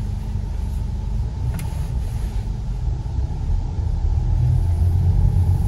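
Steady low engine and road rumble inside a moving car, growing a little louder about four seconds in.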